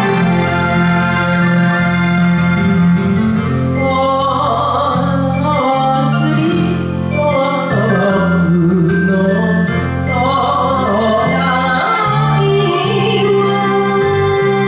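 Woman singing an enka ballad over a karaoke backing track, her voice wavering with vibrato; the first few seconds are instrumental, and the singing comes in about four seconds in.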